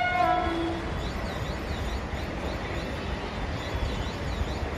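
Suburban electric local train approaching: the tail of its horn steps down in pitch and stops within the first second, followed by a steady low rumble.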